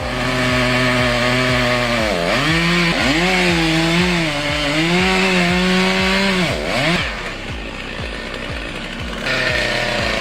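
Chainsaw running at high revs, its pitch dipping sharply twice and climbing back up. Background music with a steady beat runs underneath.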